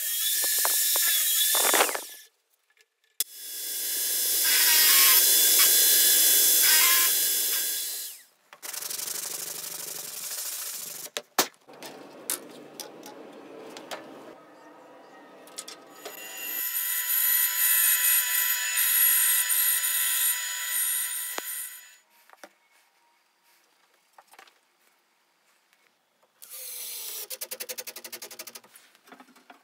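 Woodworking power tools in turn: a drill in a drill stand boring into a pine strip, a bandsaw running and cutting, and near the end a cordless drill driving a screw into the wooden frame with a fast run of clicks.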